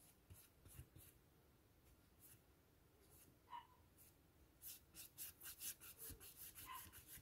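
Faint scrubbing of a paintbrush laying watercolour onto the painted surface. A few scattered strokes come first, then from about halfway a quick run of short back-and-forth strokes, about four a second.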